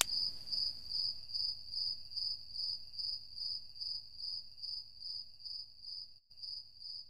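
Crickets chirping at night: a high, even note pulsing steadily about three times a second, slowly fading toward the end.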